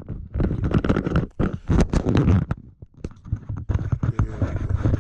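Handling noise from a GoPro camera being repositioned on its mount: rapid knocks, clicks and rubbing right against the microphone. It stops briefly about halfway through, then gives way to a steadier low rumble.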